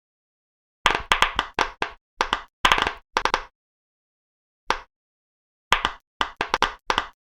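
Pop-it fidget toy bubbles popping in quick runs of short, sharp pops, several groups of them with short silences between.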